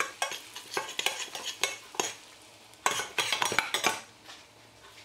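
Metal spoon stirring and scraping a small stainless steel saucepan, with repeated clinks against the pan, while butter and red pepper powder sizzle in it. The butter-and-paprika topping sauce is frying. The clinking thins out in the last second.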